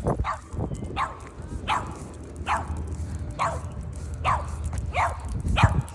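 A dog yelping over and over, short yelps falling in pitch, about eight of them a little under a second apart, over a steady low rumble.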